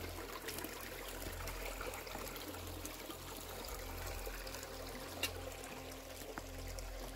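Small stream of water trickling among rocks, a steady trickle, with one brief click about five seconds in.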